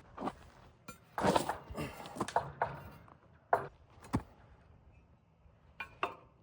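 An irregular series of knocks and clatters, some sharp and loud: a quick cluster of them a second or two in, two strong single knocks in the middle, and two lighter ones near the end.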